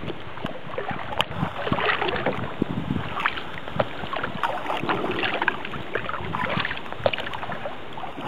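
Water splashing and lapping against a sea kayak's hull and paddle blades while paddling through choppy open water, a steady wash of many small splashes with some wind on the microphone.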